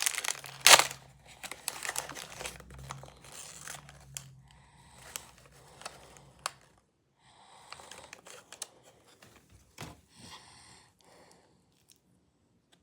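Packaging crinkling and rustling as it is handled and opened, with sharp clicks. The loudest crackle comes under a second in, and it grows softer and sparser after about four seconds.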